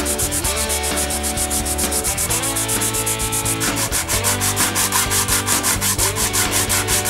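Hand-sanding a small wooden plane part: quick, even back-and-forth strokes of sandpaper rasping on wood, about seven or eight a second, with background music underneath.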